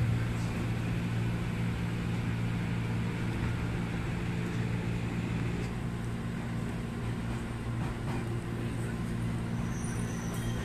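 Steady low hum of an electric train.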